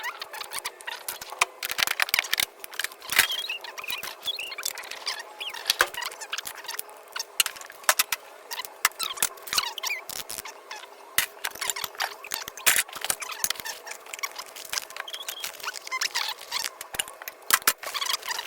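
Metal hand tools clinking and rattling as they are picked up, sorted and set down, with a steady run of sharp clicks and short high squeaks.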